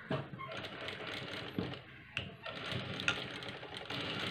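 Industrial sewing machine stitching a seam, running in spurts with a short stop about two seconds in and a few sharp clicks, a little louder near the end.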